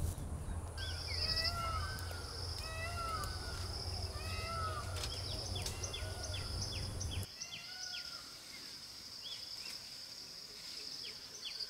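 Natural ambience: several birds chirping and whistling in short rising and falling calls over a steady, high-pitched insect drone. A low background rumble stops abruptly about seven seconds in.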